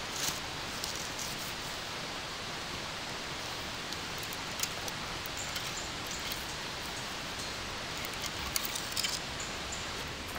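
Steady outdoor background hiss, with scattered light clicks and knocks as branches and split firewood are handled and stacked on a log rack, a cluster of them near the end.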